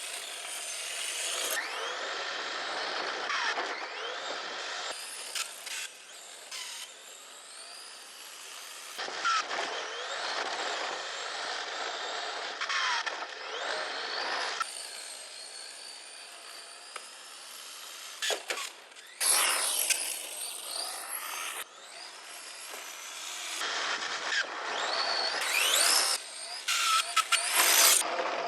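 1:10 scale electric RC car (Team Associated Apex2 Sport chassis) being driven hard: a high, turbine-like whine from its drivetrain rises and falls with speed over tyre noise, changing abruptly several times. The owner puts the whine down to slight backlash on a gear axle in the transmission.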